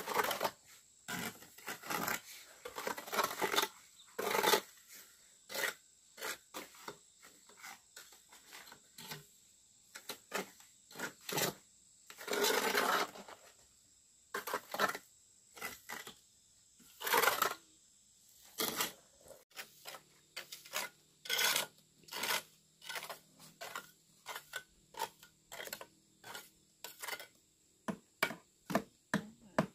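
Hand tool scraping and rubbing over cement in repeated strokes, irregular at first, then settling into a quick even run of short strokes, about three a second, near the end.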